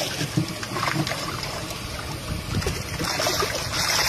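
Shallow river water trickling and splashing around a fish carcass held in it and then drawn through it, the splashing growing near the end.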